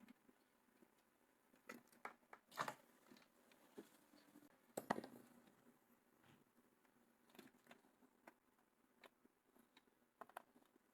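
Near silence broken by scattered faint clicks and taps, the loudest about two and a half and five seconds in: small tools and parts being handled on a workbench during circuit-board soldering work.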